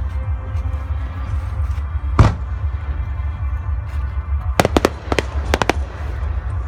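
Fireworks going off: one loud bang about two seconds in, then a quick run of about six sharp cracks a couple of seconds later, over a steady low rumble.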